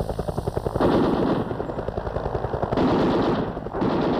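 Combat sound: a helicopter rotor chopping at about ten beats a second, with loud bursts of automatic gunfire about a second in and again near three seconds.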